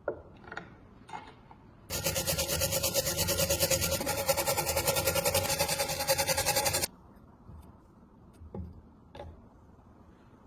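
Rapid, even rasping strokes of a tool scraping on rusty metal for about five seconds, starting and stopping abruptly, during rust removal on a tile cutter. A few light knocks come before and after.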